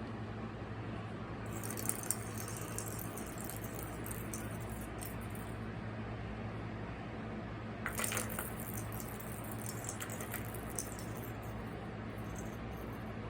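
Cat toy rattling and clicking as cats play with it, in two spells: one starting about a second and a half in, another about eight seconds in, over a steady low hum.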